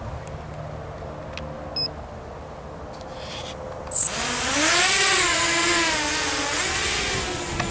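Walkera F210 racing quadcopter's brushless motors and propellers spinning up abruptly about four seconds in as it takes off, a loud whine with a rushing wash whose pitch rises and wavers with the throttle.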